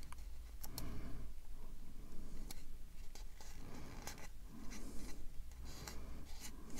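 Light clicks and scrapes of masking tape being laid and pressed down onto a plastic model panel, over a faint low hum.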